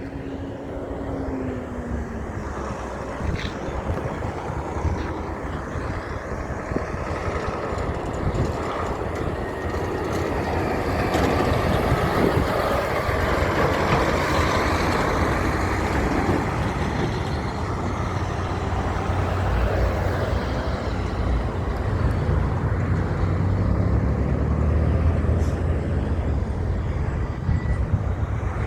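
Heavy truck traffic: a big truck's engine running and its tyres on the road, growing louder over the first dozen seconds and then staying loud, with a low, steady engine note in the second half.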